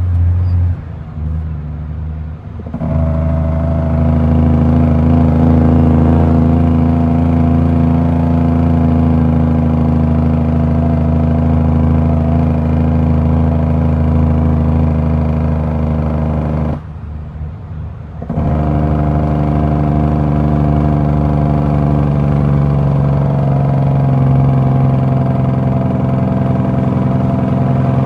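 Heavy diesel dump truck engine pulling steadily under load, heard from inside the cab. Twice the engine note drops away for a second or two and then comes back, as at gear changes.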